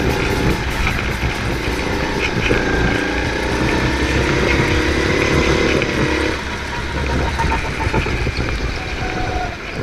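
Go-kart running at speed, heard from the driver's seat: a steady motor and tyre noise, with a whine that comes in about two and a half seconds in and drops away about six seconds in.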